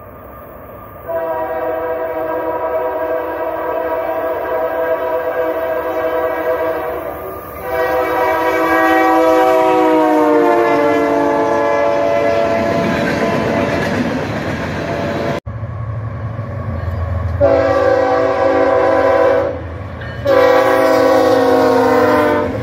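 Union Pacific diesel freight locomotive's multi-tone air horn blowing two long blasts as the train approaches, the chord dropping in pitch as the lead unit passes, then the rumble of the passing train. After a sudden cut, BNSF diesel locomotives rumble past and sound two more long horn blasts.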